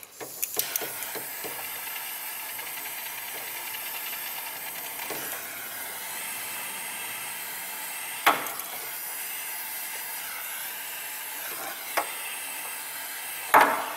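Handheld mini torch flame hissing steadily on a wire splice during a wiring repair, with three sharp clicks in the second half.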